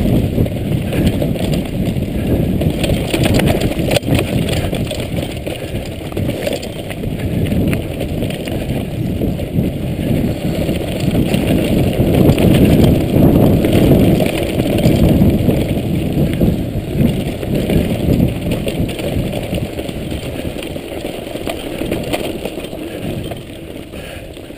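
Mountain bike riding fast over a rough, rocky forest trail: a constant rattle and clatter of tyres and bike over stones and roots, with a heavy rumble of wind on the camera microphone. It is loudest about halfway through and eases off near the end.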